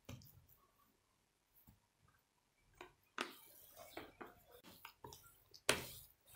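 A rolling pin rolling out a sheet of yeast dough on a countertop: a soft rubbing with light knocks that starts about three seconds in after a quiet stretch, with one louder knock near the end.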